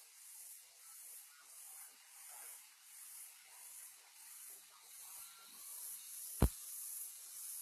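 Cicadas in the trees: a high, hissing drone that swells and fades about twice a second. A single sharp click, about six and a half seconds in, is the loudest sound.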